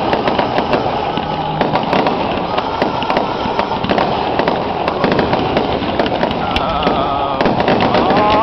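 Fireworks going off, a dense crackling of many rapid small pops that keeps up throughout. A faint pitched sound comes in near the end.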